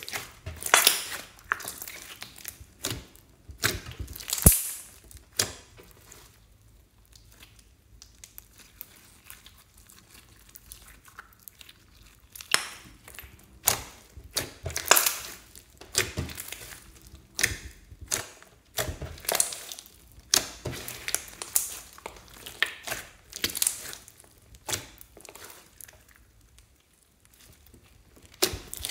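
Hands squeezing and kneading a large glossy slime mixed with floam beads, making irregular squishes and crackling pops. There is a quieter stretch of several seconds after the first few squeezes, then the squishing picks up again.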